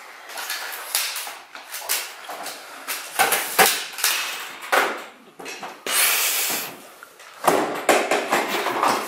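Irregular clattering, clicks and knocks from a silver metal carrying case and the gear in it being handled and opened, with rustling in between.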